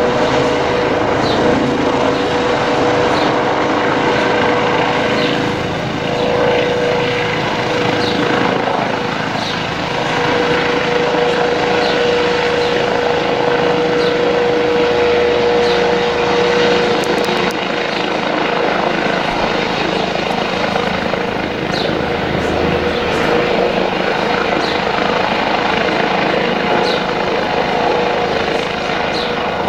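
Police helicopter circling overhead: a steady rotor and engine drone with a held whine that fades and returns as it turns.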